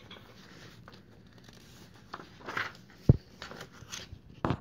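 Paper sheets rustling and being handled as worksheet pages are turned, with a few light clicks and a sharp low knock about three seconds in.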